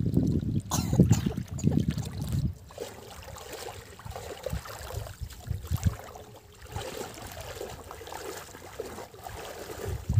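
Water sloshing and splashing around legs wading through a shallow river, in uneven low splashes. For the first two or three seconds a loud low rumble of wind or handling on the microphone covers it.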